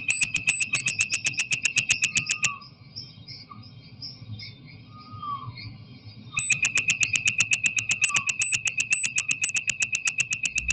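Three-striped poison frog (Ameerega trivittata) calling: a fast train of short, high-pitched notes, about ten a second, that stops about two and a half seconds in and starts again after a pause of about four seconds. Faint chirps of other animals fill the pause.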